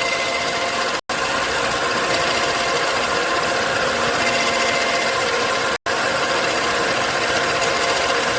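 Vertical milling machine running steadily as a friction stir deposition rig, its spindle and drive giving a constant mechanical whir with several steady tones. The sound cuts out completely for an instant twice, about a second in and again near the end.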